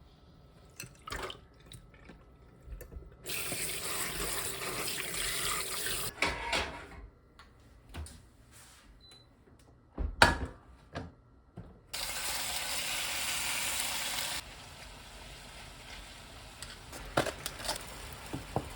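Kitchen sink tap running in two short spells, a few seconds each, with knocks and clatter of kitchenware between them and one louder knock roughly midway.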